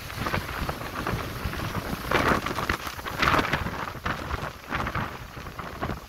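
Storm sea in typhoon conditions rushing and breaking against a fishing boat, with foaming spray hissing and a steady low rumble of gale-force wind on the microphone. Two louder surges of breaking water come about two and three seconds in.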